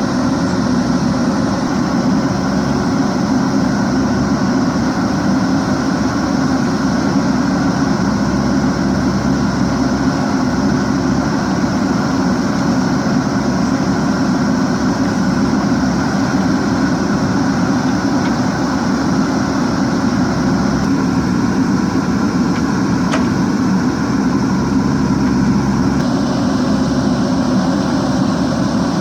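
A JCB 3DX backhoe loader's diesel engine running steadily.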